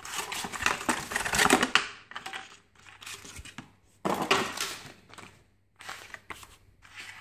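Packaging being handled during an unboxing: plastic bags and a cardboard box rustling and crinkling, with small clicks and taps as the plastic holster and its parts are moved about. It comes in bursts, the longest over the first two seconds and another about four seconds in.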